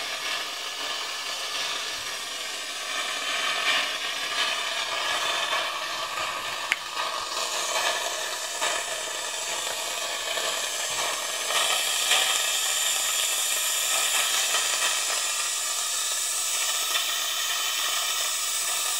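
Air-driven, 3D-printed venturi jet siphon hissing steadily as it sucks air and excess oil out of an engine cylinder through a thin tube, sounding like the suction in a dentist's office. The hiss gets louder about twelve seconds in.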